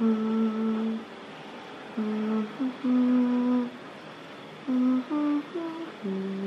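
A woman humming a slow lullaby with closed lips to lull a baby to sleep: a string of long held low notes with short pauses between them.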